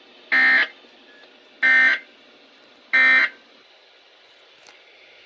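Three short, buzzy electronic data bursts, evenly spaced about 1.3 seconds apart: the SAME end-of-message tones of a weather radio alert broadcast, which mark the end of the warning message. A sharp click comes at the very end.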